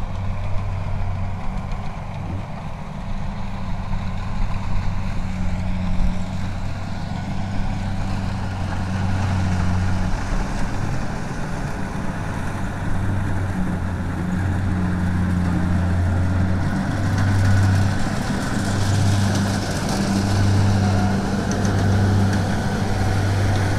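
Kubota DC70 combine harvester's diesel engine running steadily, with a constant low hum. Its cutting and threshing noise grows louder over the last several seconds.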